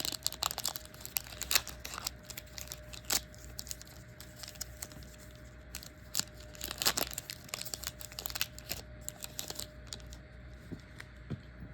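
Trading card pack wrapper being torn open and crinkled: a run of quick crackles and rustles that thin out near the end.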